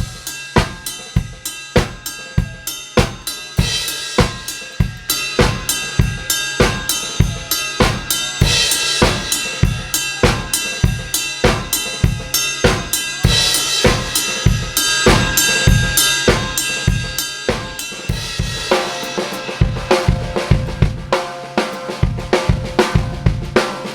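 A full drum kit playing a steady beat, with kick, snare, hi-hat and cymbals, recorded with a single mono U47 room microphone so the kit sounds roomy. The playing gets busier about three-quarters of the way through.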